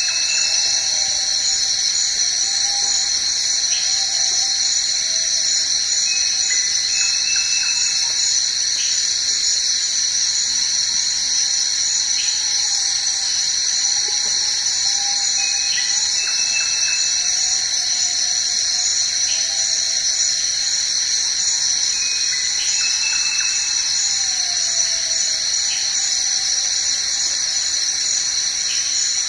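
Tropical rainforest insect chorus: a steady, high-pitched drone that never lets up. Below it come faint, wavering whistled calls, along with short higher notes every few seconds.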